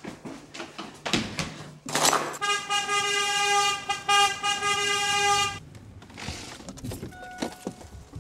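A horn sounds one steady note for about three seconds, after a few clicks and a short noisy burst.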